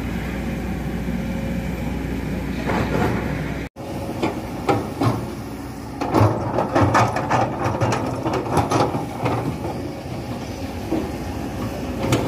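Steady low rumble of road vehicles, which breaks off abruptly about a third of the way in. After the break comes a run of irregular clicks and knocks over a fainter hum.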